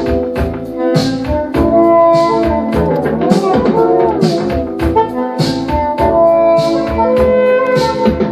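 A vinyl record playing on a Pioneer PL-630 quartz direct-drive turntable: brass-led, jazz-style music with a steady beat of about two hits a second.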